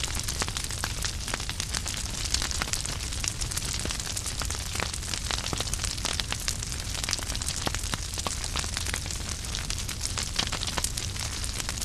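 Wood fire in a fireplace burning with a steady hiss and frequent sharp crackles and pops from the logs.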